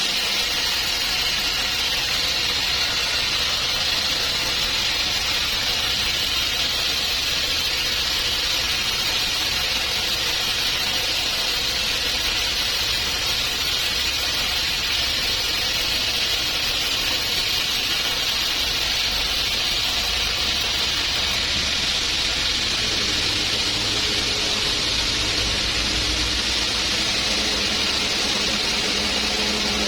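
Sawmill machinery running steadily: a loud, continuous mechanical noise with a hiss in the upper range. A low hum grows a little stronger in the last several seconds.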